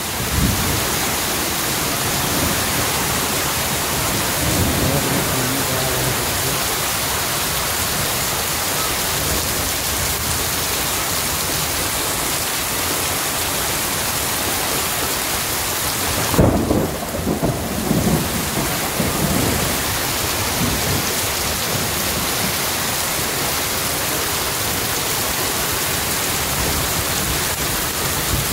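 Heavy rain pouring onto a concrete courtyard: a steady, dense hiss. About two-thirds of the way through comes a few seconds of low rumbling.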